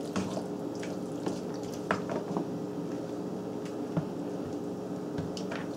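Wooden spoon stirring chicken and cooked spaghetti into a thick cream sauce in a stainless saucepan: wet squishing with scattered light knocks of the spoon against the pot, over a steady low hum.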